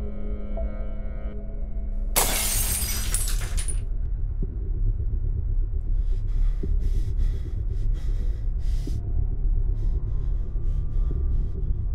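A sudden shattering crash about two seconds in, lasting a second or so, over a steady low drone. From about halfway on, a scatter of short, sharp ticks.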